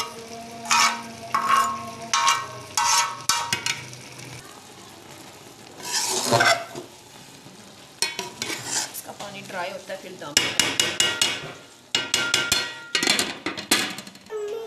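Metal spatula scraping and stirring rice in an aluminium pot, in short strokes at first and then a fast, dense run of scrapes over the last few seconds.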